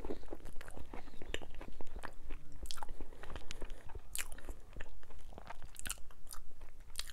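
A person chewing a mouthful of sope, a thick fried masa cake with toppings, close to a clip-on microphone: a run of irregular wet clicks and crunches.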